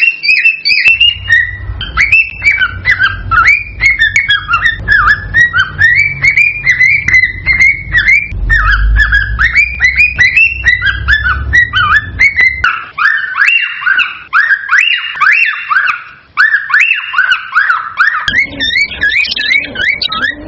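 Male cockatiel's excited courtship song: a loud, rapid, unbroken run of short chirps and whistles, rising and falling, several a second. A low rumble sits underneath for most of the first half and again near the end.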